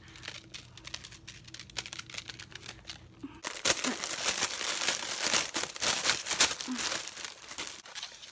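Clear plastic packaging crinkling as it is handled and pulled open to free a cloth banner: a few quiet rustles at first, then loud, continuous crackling from about three and a half seconds in.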